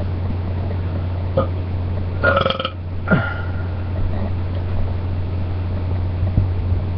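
A person belching: a short one a little over a second in, a stronger pitched belch about two seconds in, and another just after three seconds that drops in pitch. A steady low hum runs underneath.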